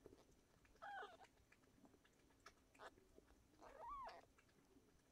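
Very young kitten mewing twice, two short high calls about three seconds apart, the second rising and then falling. Faint small ticks in between.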